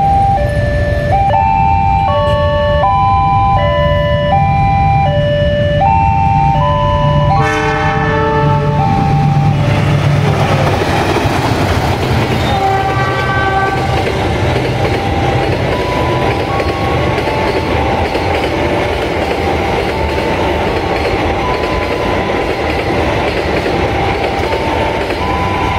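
An electronic warning signal plays a repeating tune of stepped, alternating tones, a train horn sounds once briefly about seven and a half seconds in, and then the Taksaka express passenger train runs through at speed, its coaches making a loud, steady rush of wheel and rail noise over the warning tones.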